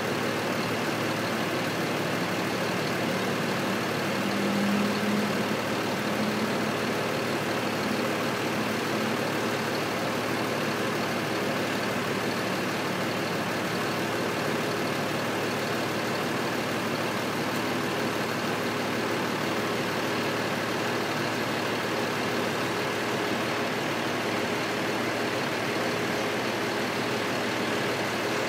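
Steady mechanical drone like an engine idling, with a slight swell about four to six seconds in.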